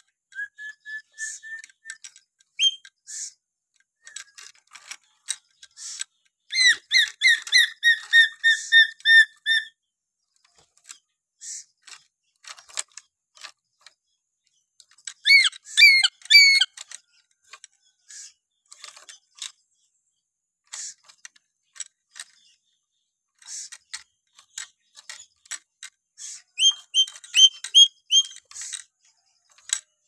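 Black-capped lory whistling: single clear whistled notes and three quick runs of rapidly repeated, rising whistles, with scattered short clicky calls in between.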